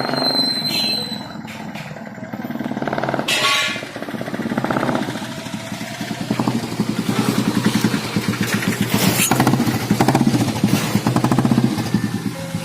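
Motorcycle engine and exhaust running with the throttle opened and closed in repeated blips, the firing pulses rising and falling in loudness.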